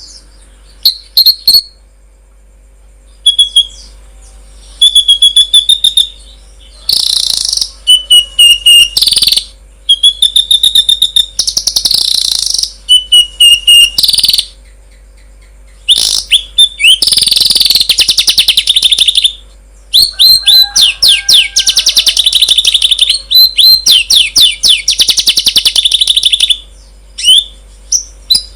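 Songbird singing a loud, fast, varied song of sharp chirps, whistled notes and rapid rattling trills, delivered in bursts of a few seconds with short pauses between.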